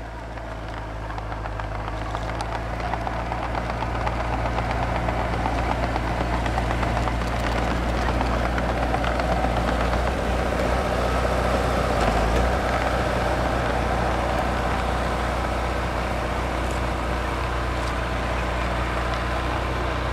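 Small crawler dozer's diesel engine running steadily under load as it pushes deep snow, which the dozer can hardly clear. It grows louder over the first few seconds as it comes close, then holds steady.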